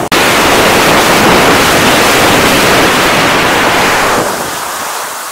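Wind rushing over an action camera's microphone as a snowkiter skis along, a loud, even rush that eases off and turns duller about four seconds in.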